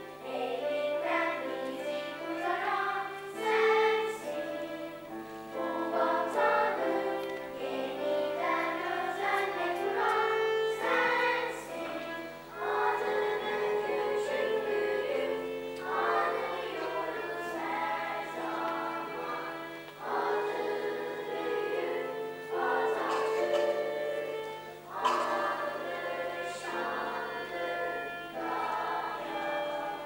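Children's choir singing, accompanied by a violin.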